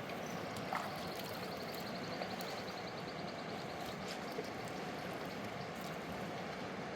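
Steady rush of a fast-flowing river. A high, rapid trill sounds over it for the first few seconds.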